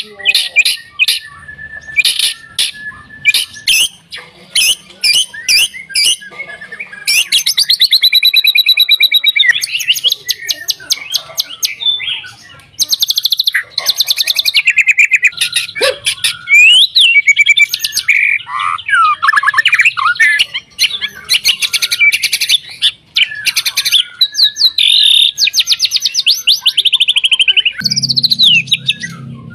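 White-rumped shama (murai batu) singing a long, varied song. It opens with separate sharp notes for the first several seconds, then runs into fast rattling trills and quick whistled phrases.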